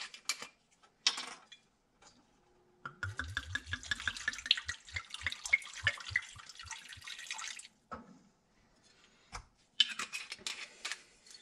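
White wine poured from a glass bottle into a sauté pan of garlic and olive oil: about five seconds of splashing with a quick run of low glugs from the bottle, about three or four a second. A few light knocks follow near the end.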